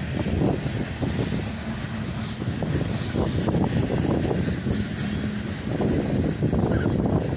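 Union Pacific manifest freight train's cars rolling past on the rails: a steady low rumble with irregular clicking and rattling from the wheels and cars.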